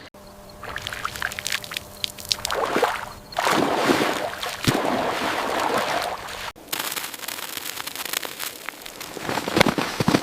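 Water sloshing and lapping in uneven swells, with small clicks and splashes.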